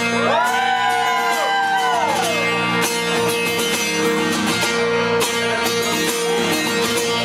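Instrumental intro of a rock song led by guitar, with notes bent up and sliding back down in the first couple of seconds over sustained chords.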